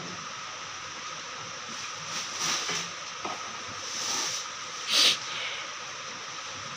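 Plastic bags rustling and crinkling as they are handled, in short bursts about two and a half, four and five seconds in, the last the loudest, over a steady hiss.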